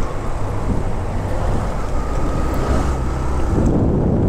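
Yamaha YBR125G motorcycle's single-cylinder engine running steadily while riding on the road, with wind noise on the microphone.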